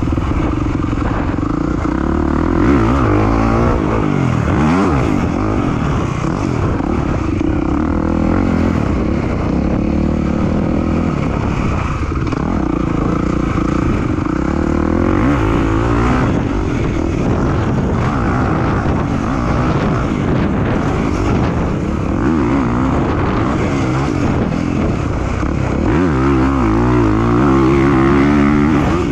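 Dirt bike engine heard from on board while it is ridden around a motocross track, its pitch rising and falling again and again as the throttle is opened and closed.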